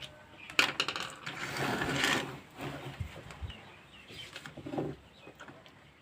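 Light clicks and rustling of small-parts handling as multimeter probes are placed on the headphone speaker's wires. A cluster of sharp clicks comes about a second in, then a short rustle, then a few faint taps.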